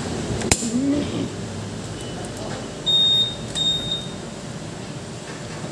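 A sharp click, then two short high-pitched electronic beeps in quick succession a couple of seconds later.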